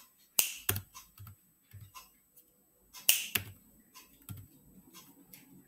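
Finger snaps: two sharp snaps about two and a half seconds apart, with a few fainter clicks between them.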